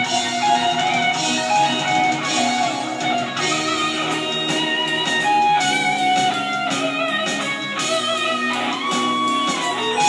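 Electric guitar playing a line of held and changing notes, with an orchestra accompanying.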